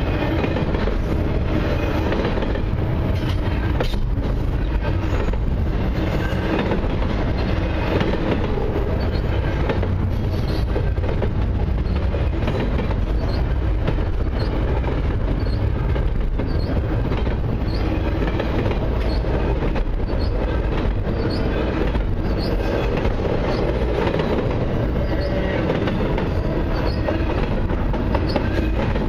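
Double-stack intermodal train's container well cars rolling past: a steady rumble and rattle of steel wheels on the rails, with clicks over the rail joints and occasional faint, high wheel squeals.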